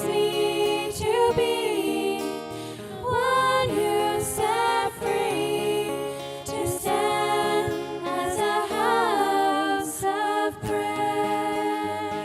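A worship song: a voice sings a slow, gliding melody over sustained instrumental accompaniment.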